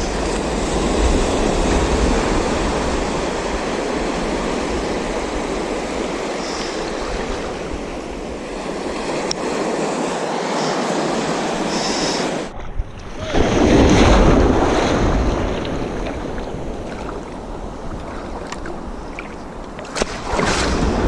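Surf breaking on a beach, a steady wash of waves with one louder surge a little past halfway through.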